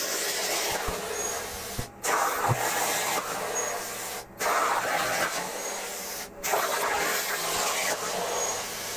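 Plasma cutter torch on a CNC table hissing steadily with its arc and air flow as it cuts steel plate. The hiss cuts out briefly three times, roughly every two seconds.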